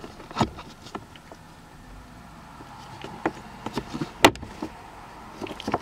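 Scattered plastic clicks and knocks as gloved fingers push, pry and pull at a car glove box's plastic retaining tab, with one sharp, loud click a little past four seconds in.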